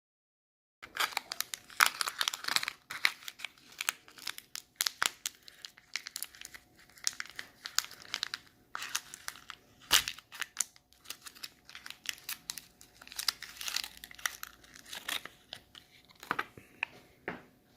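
Packaging wrapper crinkling and tearing as a surprise egg is unwrapped by hand. The crackles start about a second in and come in dense, uneven handfuls, with louder bunches around two seconds, ten seconds and near the end.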